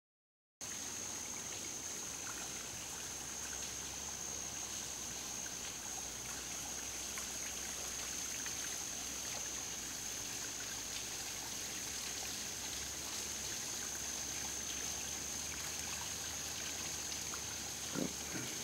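Quiet pond-side woodland ambience: a steady high-pitched insect drone over a soft hiss, with faint trickling water.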